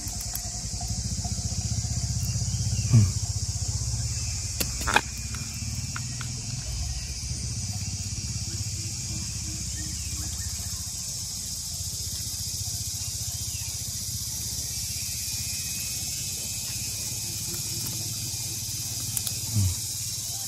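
Insects chirping steadily over a low steady rumble, with two brief knocks about three and five seconds in.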